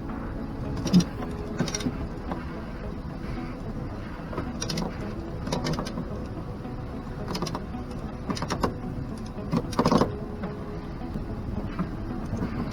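A sailboat's inboard engine running steadily, with sharp knocks and clicks from the deck gear and rigging at irregular intervals; the loudest knock comes near the end.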